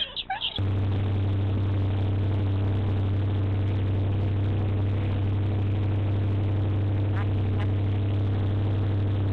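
Towing motorboat's engine running at a steady speed: a constant, even low drone over a hiss of rushing water and air, starting abruptly about half a second in.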